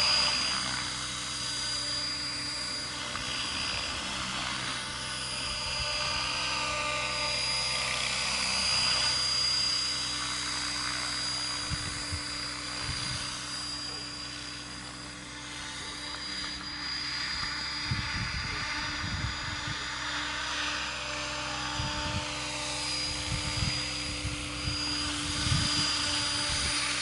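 Electric RC helicopter (Mikado Logo 500 3D class) flying low: a steady high whine from the motor and drivetrain over the wavering whoosh of the main rotor. Low bumps on the microphone in the second half.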